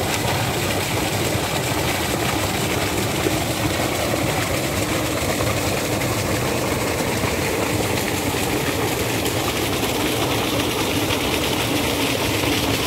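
Irrigation water gushing out of an outlet pipe into an earth field channel: a steady rushing noise, with an engine running underneath it, typical of the pump feeding the pipe.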